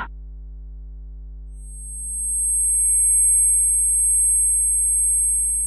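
Electronic sound effect: a steady low synthesized drone, joined about a second and a half in by piercing high-pitched steady tones that swell up and hold.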